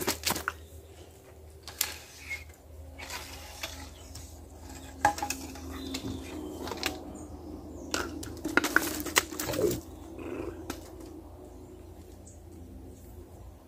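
Fishing gear being handled: a plastic pipe and a rod knocked about and pulled from a bag, giving scattered clicks, knocks and scraping, with a burst of clattering about eight to nine seconds in.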